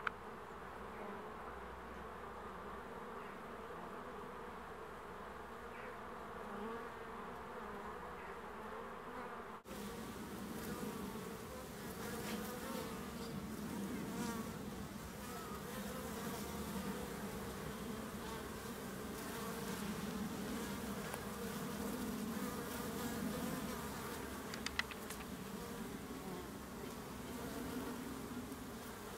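Honeybees buzzing at a hive entrance: many bees flying in and out of the entrance hole, making a steady hum. The hum breaks briefly about ten seconds in and then carries on a little fuller.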